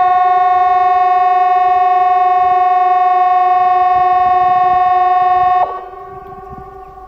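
CA 370 outdoor warning siren sounding a loud, steady tone during a siren test, cutting off sharply about five and a half seconds in. After it stops, a fainter siren tone carries on in the distance.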